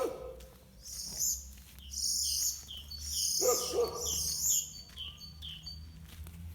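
Small birds chirping in a quick run of high, repeated calls, each with a short falling note. A short, lower call sounds at the start and again about halfway through.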